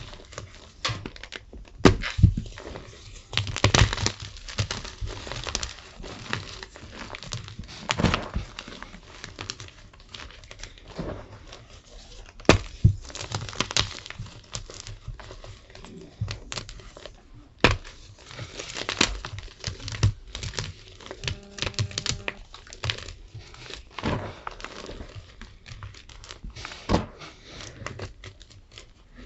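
Gym chalk being crunched and crumbled, a run of irregular crackles and crunches with louder sharp snaps now and then.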